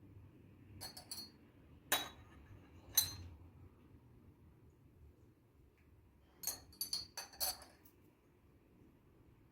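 Light clinks and taps of hard objects knocked together: single taps about one, two and three seconds in, then a quick run of several around the middle of the second half.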